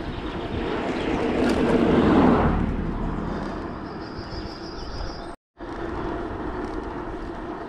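Wind and road noise from riding a bicycle, rising to a louder swell about two seconds in and easing off again. The sound cuts out for a moment about five and a half seconds in.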